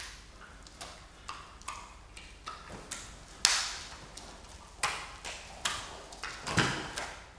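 Wet, bloody hearts being juggled, slapping into the hands on each catch: a string of short wet slaps, about two a second and unevenly spaced, a few of them much louder.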